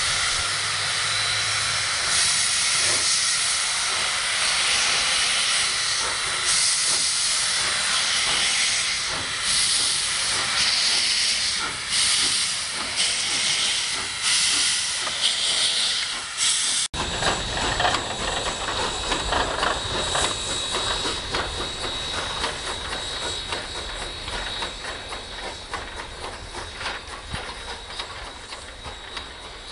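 Narrow-gauge steam locomotives hissing, with loud blasts of venting steam that start and stop every second or two. From about two-thirds of the way in, a softer steam hiss with a fast, uneven pulsing and a low rumble, slowly fading.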